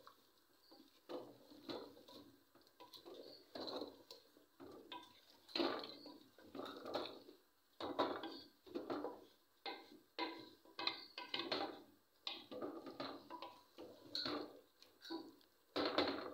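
Wooden spoon stirring a thick meat-and-turnip curry in an open pressure cooker, scraping and knocking against the metal pot in irregular strokes about once a second.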